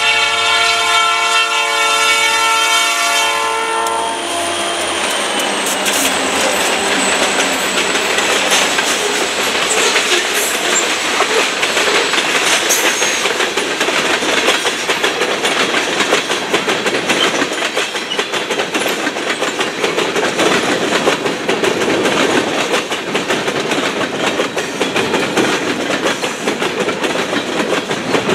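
Freight locomotive air horn sounding a long chord that stops about three to four seconds in. Then a freight train of tank cars rolls past close by, a steady rumble and clatter with the wheels clicking over the rails.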